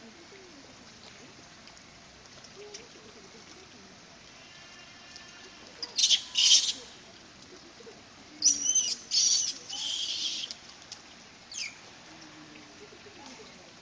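Loud, shrill animal calls: two short cries about six seconds in, a run of piercing calls, some falling in pitch, from about eight and a half to ten and a half seconds in, and one more short cry near the end.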